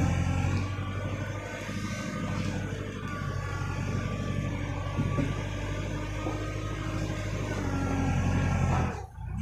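Small farm tractor engine running steadily under load as the tractor works in deep mud. The sound drops away sharply about nine seconds in.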